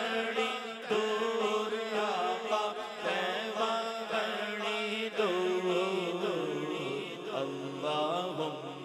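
A man's voice chanting naat through a microphone, drawing out a long wavering melodic line without clear words, over a steady low drone that shifts lower about halfway through.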